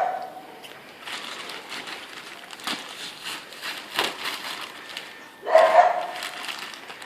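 Cardboard and plastic packaging being handled, with scattered clicks and rustles. A dog gives one short yip about five and a half seconds in.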